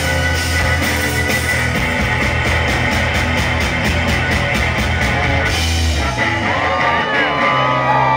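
Rock band playing live through a big festival PA, guitar, bass and drums, with fast even drum strikes building as the song ends about six seconds in. The crowd then cheers and whoops.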